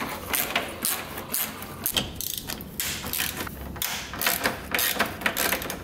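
Ratchet wrench clicking in short irregular runs as the bolts holding a car radiator and A/C condenser are turned out.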